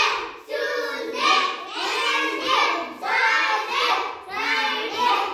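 A group of children chanting the days of the week together, word after word in a sing-song rhythm.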